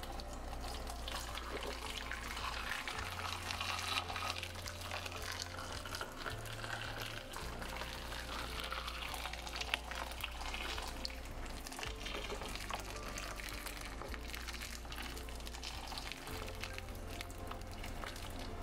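Hot water being poured over whole tomatoes in a bowl, a continuous splashing stream, to blanch them so the skins peel off easily.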